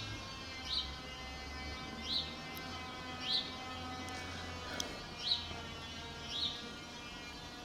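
Siemens E57 electric siren sounding a steady tone with several overtones. Over it a bird repeats a short chirp about once a second, and the chirps are the loudest sounds.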